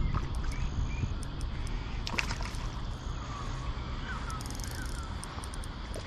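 Low rumble of wind and handling noise on the camera's microphone, with a few faint bird chirps and a single sharp click about two seconds in.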